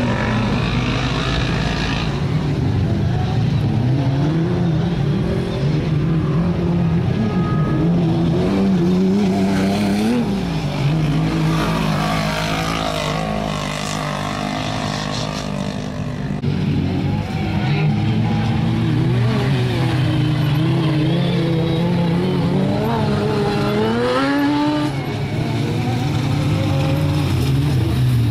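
Engines of several off-road race cars running around a dirt circuit, overlapping, their pitch rising and falling as they accelerate and lift off. A little before the end, one engine revs up in a clear rising glide.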